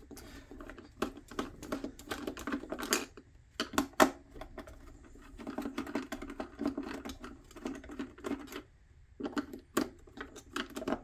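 Hand screwdriver backing T10 Torx screws out of a patient monitor's plastic housing: a run of small clicks and ticks, with a sharper click about four seconds in and a few seconds of rasping past the middle.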